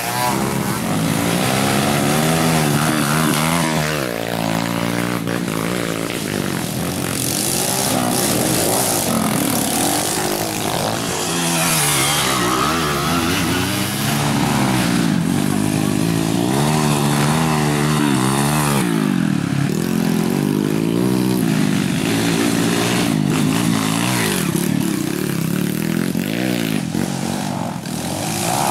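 Trail dirt bike engines revving hard, over and over, the pitch climbing and dropping with the throttle; at times more than one bike is heard at once.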